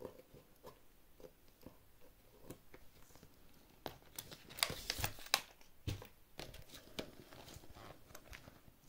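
Crinkling and rustling of bags and paper being handled, with scattered small taps and clicks and a burst of louder crackles about four to six seconds in.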